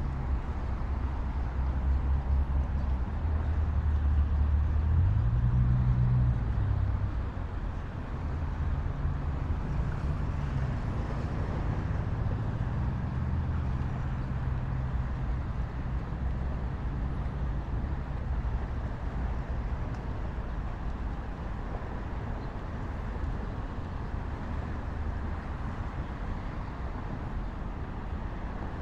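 Steady highway traffic, with one vehicle's engine passing loudly in the first several seconds, its pitch rising briefly about five seconds in before it fades back into the general traffic hum.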